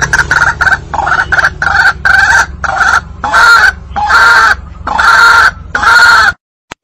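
Recorded calls of a white-breasted waterhen (ruak-ruak), used as a hunting lure: a run of repeated call notes, short and quick at first, then longer and louder. The recording cuts off suddenly near the end.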